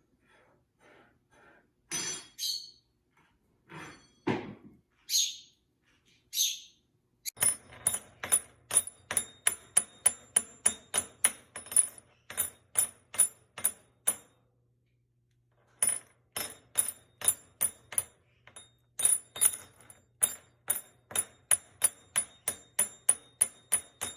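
A pet parrot's short whistled chirps, then a long run of sharp, evenly spaced tapping clicks, about three a second, pausing briefly midway.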